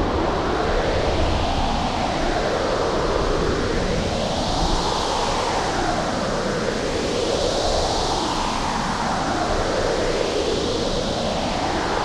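Hurricane sound effect: a dense, steady rush of storm wind with a howl that sweeps up and down in pitch about every three seconds.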